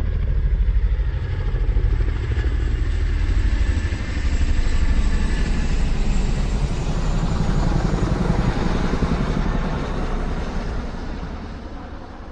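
A motor vehicle's engine running in a fast, even pulse, its level swelling and easing in waves, then fading away near the end.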